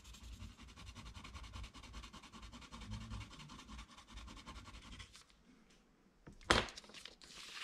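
Faint scratching of a coloured pencil and a clay sgraffito tool scraping oil pastel off paper, then a single sharp knock about six and a half seconds in.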